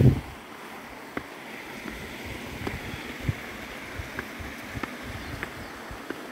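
Footsteps on stone steps and a stone path: a scatter of short scuffs and taps over a steady rushing noise, with a heavier low thump right at the start.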